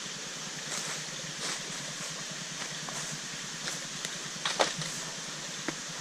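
Footsteps crunching on dry leaf litter, a few scattered crackles with the loudest pair a little past halfway, over a steady hiss of running water from the falls.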